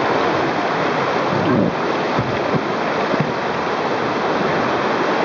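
Whitewater river rapids rushing and churning around an inflatable raft: a steady, loud rush of water.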